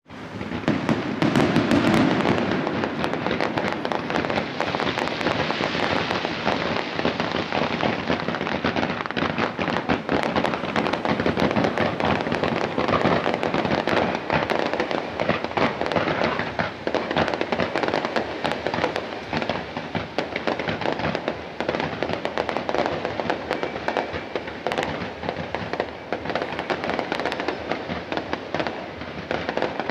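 Fireworks display: a dense, continuous crackle of many pops and bangs, loudest with a deeper boom a couple of seconds in.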